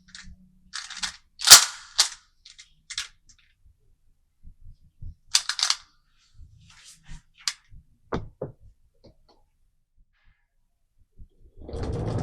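Marbles clacking as they drop and bounce through a wooden marble run: scattered sharp clicks in small clusters, the loudest about a second and a half in. Just before the end, a steady rolling rumble starts.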